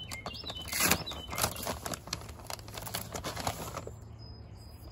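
Bag of Plant-tone granular fertilizer rustling and crinkling as it is shaken out over potting soil, quietening about four seconds in. A bird chirps a few times in the first second or so.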